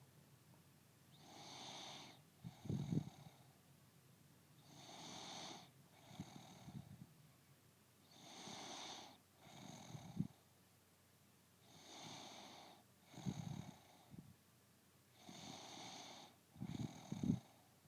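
A woman snoring in her sleep: about every three and a half seconds a hissing breath followed by a short, low rattling snore, five times over.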